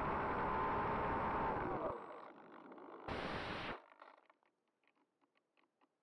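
Onboard audio of a small electric FPV foam plane on landing: airflow rush and the motor's steady whine, which winds down and stops about two seconds in. About a second later comes a brief loud scraping rush as it touches down and slides through grass, followed by faint scattered ticks.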